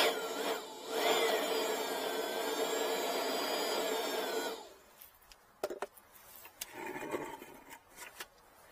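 Cordless blower running, its motor whining over a steady rush of air as it blows out the remaining engine oil; it is switched off about four and a half seconds in, followed by a few light clicks and knocks.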